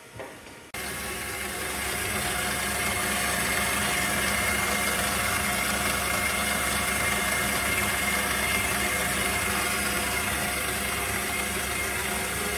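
Electric stand mixer running at a steady speed, its beater turning flour in a steel bowl under a pouring shield. The steady motor sound starts abruptly about a second in.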